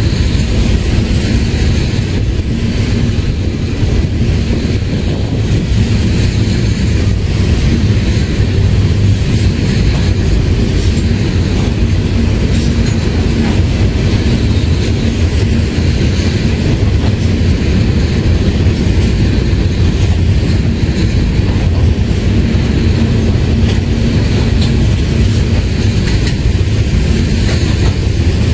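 Freight train of tank cars rolling steadily past: a continuous loud rumble of steel wheels on the rails, with scattered clicks as the wheels cross the rail joints.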